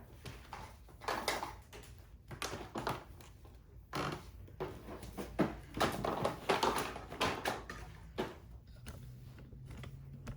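Handling noises: irregular knocks, clicks and rustling as the vacuum's plastic attachment tools are handled.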